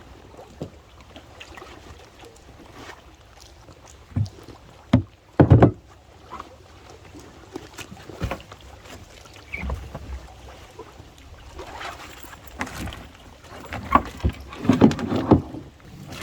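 Scattered knocks and thumps from a kayak and camping gear being handled, loudest a little over five seconds in and again near the end.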